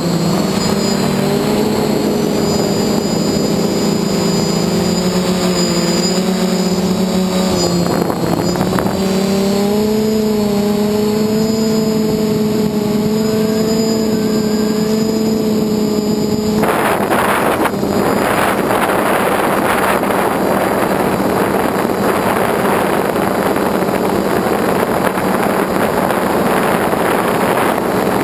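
A small drone's electric motors and propellers hum loudly, heard from the onboard camera, with the pitch wavering slightly as the drone flies. About halfway through, the hum becomes a coarser rushing noise with a weaker tone underneath.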